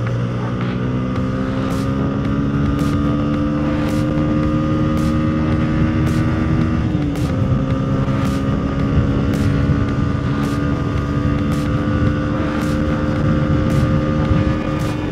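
Yamaha TFX 150's single-cylinder engine pulling steadily at road speed, its pitch rising slowly, with a short dip in pitch about seven seconds in before it carries on. Wind and road noise underneath.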